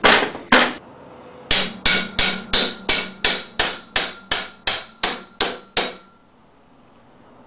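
Rapid blows on the steel magnet rotor of an axial-flux alternator, about three a second, driving it down its tight-fitting threaded studs; each blow leaves a faint metallic ring. Two single knocks come first, and the blows stop about six seconds in.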